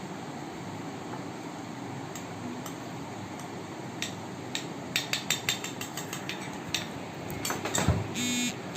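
Spoon clicking and tapping against kitchenware, a scattered run of sharp clicks through the second half that grows busier near the end, over a steady background hiss.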